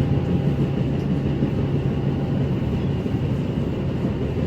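Commuter train running: a loud, steady rumble with a low hum.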